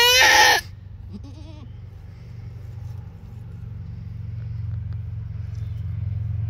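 Boer–pygmy mix doe in labour bleating loudly while straining to push, a rising cry that breaks off about half a second in. A short, faint call follows about a second in, over a steady low hum.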